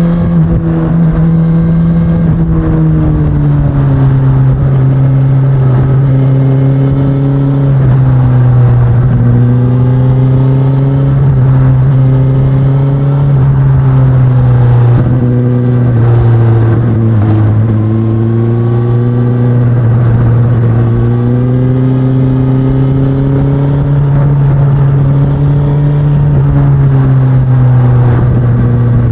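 2019 Suzuki Katana's inline-four engine through its stock exhaust, running at a steady pitch that slowly rises and falls.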